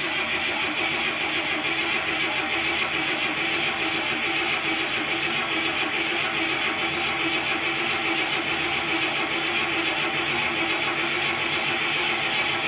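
Starter motor cranking the carbureted engine of a 1981 Buick Regal over steadily without it firing. This is deliberate cranking after months of storage, to prime the oil pump and get oil to the bearings before a real start, so that it is not a dry start. The engine turns a little quicker as it loosens up.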